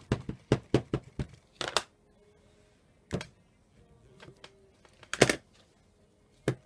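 Plastic ink pad tapped repeatedly onto a rubber stamp on an acrylic block, light clacks about five a second, stopping after about a second. Then a few separate knocks and rustles as the stamp is pressed onto tissue paper and lifted, the loudest about five seconds in.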